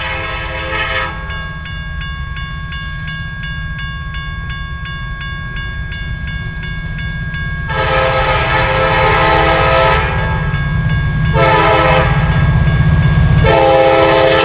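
Norfolk Southern SD60 diesel locomotive's horn sounding for a grade crossing: a blast ending about a second in, then a long blast, a short one and another long one held to the end. Between the blasts a crossing bell rings steadily about twice a second, over the low rumble of the approaching diesels.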